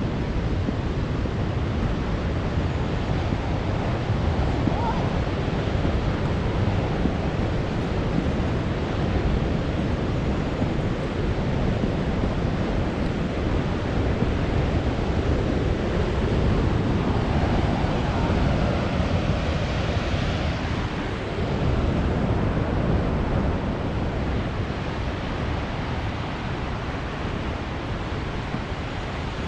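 Wind buffeting the microphone: a steady rushing noise with a heavy, fluctuating low rumble.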